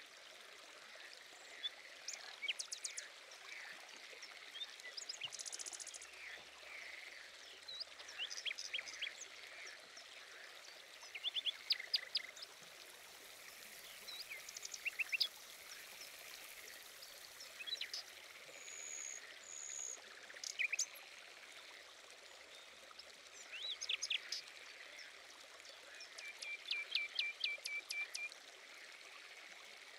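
Several small birds calling in short runs of quick chirps and trills over a steady hiss of running water.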